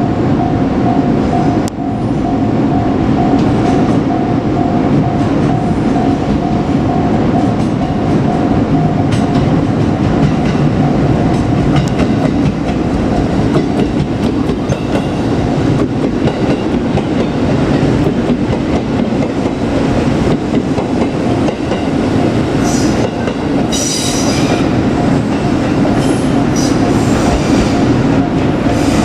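JR Kyushu 787 series electric express train running past, its wheels rumbling and clattering over the rails the whole time. A steady high tone sounds over it at first and fades about eleven seconds in. Short high-pitched squeals come near the end.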